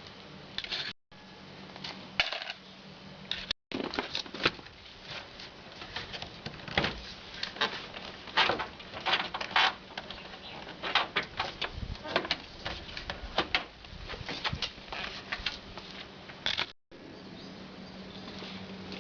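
Irregular clicks, taps and light knocks of tools and plastic trim parts being handled while the inside of a pickup's door is taken apart.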